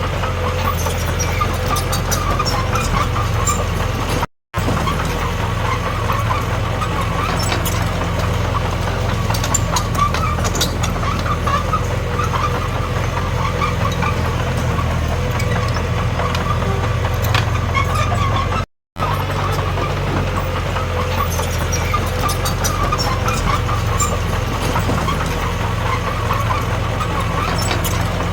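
Diesel engine of a Komatsu D21P bulldozer running steadily at work, with scattered metallic clanks. The sound drops out briefly twice.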